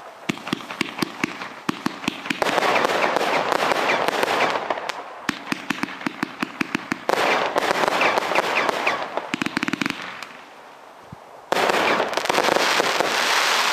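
Pyrotastic consumer firework going off: runs of rapid sharp bangs alternate with longer stretches of dense crackling. There is a short lull about ten seconds in, then a final burst of crackle.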